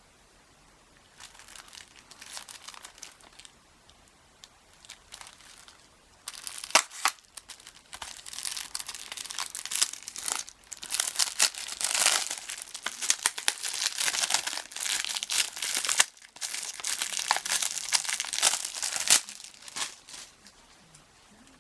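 Plastic shrink wrap being torn and crumpled off a Blu-ray case, crinkling and crackling. It is sparse at first, then dense and loud for most of the rest, and stops shortly before the end.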